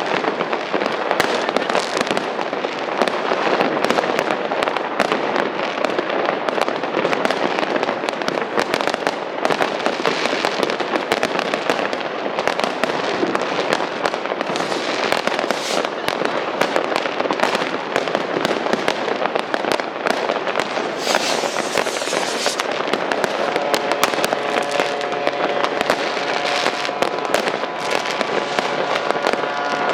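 Massed fireworks: continuous overlapping bangs and crackling from many rockets and firecrackers at once. About 23 seconds in, a steady tone with several pitches joins in and holds.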